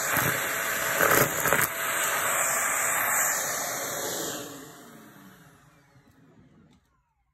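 Shark vacuum cleaner running and sucking up crunchy debris, with loud crackles about a second in. It is then switched off, and the motor whine falls in pitch and winds down to silence.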